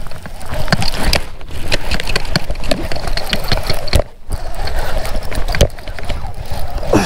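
Baitcasting reel and fishing line being worked by hand right at the microphone: a fast, loud mechanical clicking and rattling that breaks off briefly about four seconds in.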